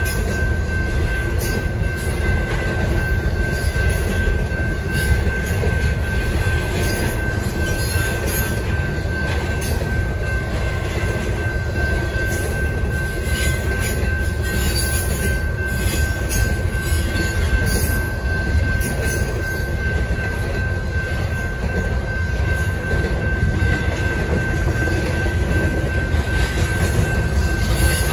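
Double-stack intermodal container cars rolling past at speed: a steady low rumble of wheels on rail, with a continuous high-pitched wheel squeal and scattered clicks.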